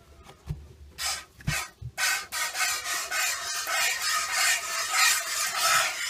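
A goat being milked by hand, with streams of milk squirting into a stainless steel bowl in a rhythmic, hissing rasp. It starts as a few separate squirts about a second in and becomes a continuous run of squirts from about two seconds in.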